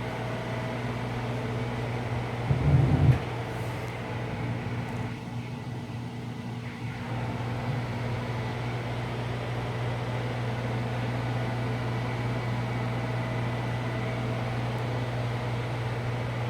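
Steady low mechanical hum of a running machine, with a brief low thump about three seconds in.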